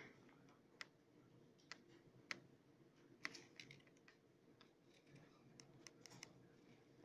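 Faint clicks of the buttons on a plastic wireless air-mouse remote being pressed, about a dozen irregular presses, with several in quick succession near the end.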